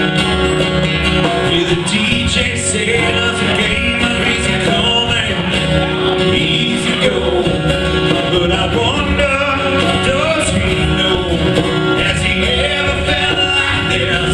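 Live band playing country-style music with guitar, at a steady loud level throughout.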